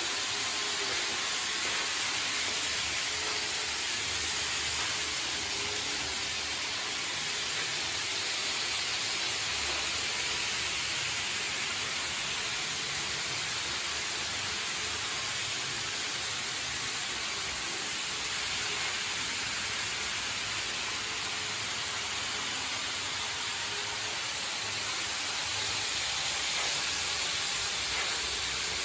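Steady hiss of many N scale Kato model trains running at once on their track.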